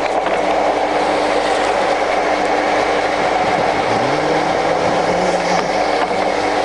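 Arad SNA-560 centre lathe running under power, its spindle and headstock gears making a steady mechanical hum and rattle. About four seconds in, a low tone rises and then holds.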